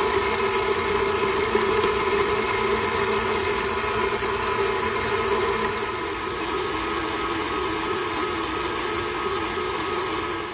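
Electric mixer running steadily, its beaters whipping egg whites until firm; the motor hum drops a little in pitch about halfway through.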